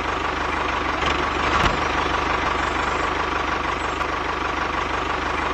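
A tractor engine idling steadily, with a fast, even low chug under a hiss.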